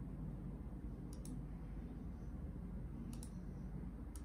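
Computer mouse clicking: two quick pairs of sharp clicks about two seconds apart, then one more near the end, over a low steady hum.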